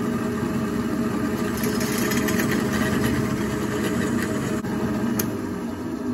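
Drill press motor running steadily while a small pilot bit is fed down into a square steel tube, drilling a pilot hole; the cutting adds a harsher, higher grinding noise from about a second and a half in. Near the end the bit is raised out of the steel.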